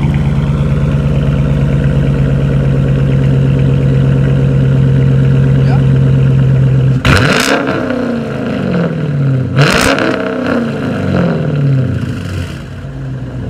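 Dodge Charger R/T's 5.7-litre HEMI V8 idling steadily through an exhaust with new 3-inch dual tips, then revved hard twice, about two and a half seconds apart, the revs falling back after each blip.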